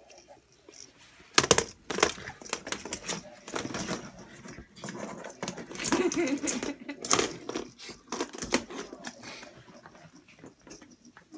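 Small dog playing with a plastic ball toy on a hardwood floor: irregular clattering and clicking of the ball and the dog's claws, starting about a second and a half in and coming in clusters.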